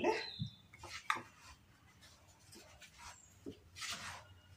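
Wooden spoon stirring dry flour, yeast and sugar in a plastic bowl: soft, intermittent scraping strokes, with one a little after a second in and a longer one near the end.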